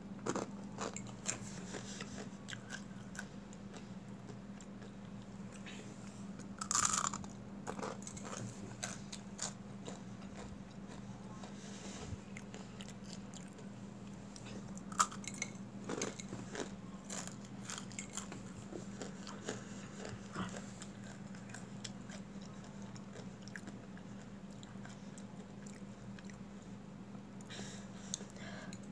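Mamee Monster dry instant-noodle snack being bitten and chewed: scattered sharp crunches throughout, with a louder bite about seven seconds in and another around fifteen seconds. A faint steady hum sits underneath.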